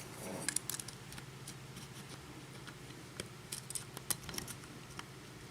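Small metal clicks and light scrapes of lock picks against a pin tumbler lock with a Schlage-type keyway. A quick cluster of clicks comes in the first second, then scattered single ticks.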